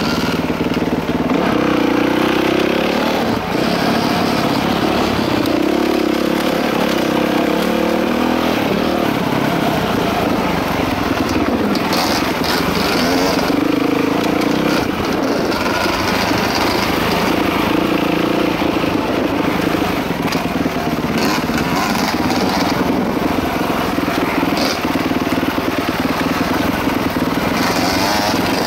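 Dirt bike engine running under way on a trail ride, its pitch rising and falling every few seconds as the throttle opens and closes.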